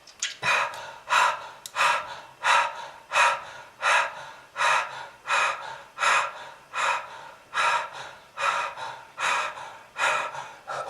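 A person breathing hard and fast, gasping in a steady rhythm of about one and a half breaths a second.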